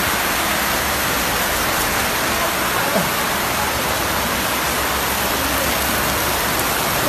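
Torrential rain falling steadily, a dense even hiss, with a brief knock about three seconds in.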